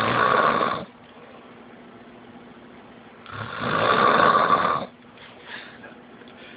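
A person snoring in slow, regular breaths: loud snores about four seconds apart, one ending about a second in and another from about three to five seconds in.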